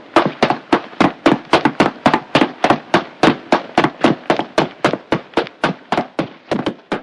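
Samsung clothes dryer making a loud, rhythmic knocking, about three to four knocks a second. The knocks slow and fade toward the end as the drum winds down. This is the abnormal loud noise the dryer needs fixing for.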